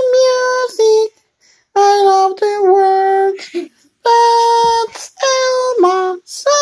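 A child singing a string of high, long held notes with short breaks between them, the pitch stepping down a little within some notes.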